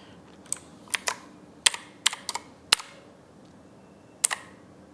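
MKA2C mechanical keyboard with clicky blue switches, keys pressed one at a time: about eight sharp clicks at uneven intervals, with a pause of over a second before a last close pair.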